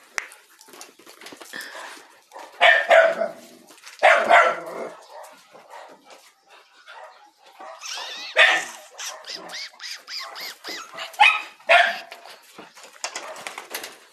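Dogs barking in play: short loud barks every couple of seconds, with softer yips and whines between.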